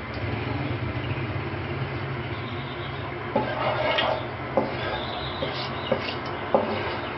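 A wooden spatula stirring cardamom seeds in hot oil in a non-stick wok, scraping and knocking against the pan several times in the second half, over a steady low hum and hiss.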